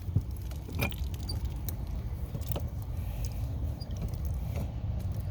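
Scattered light metallic clicks and clinks of the old faucet being worked off with tools, over a steady low rumble.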